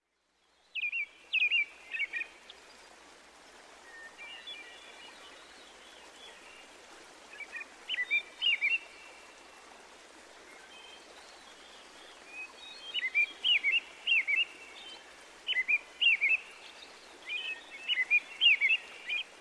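Birds chirping in short bursts of quick, high notes, with pauses between the bursts, over a soft steady hiss of outdoor background noise.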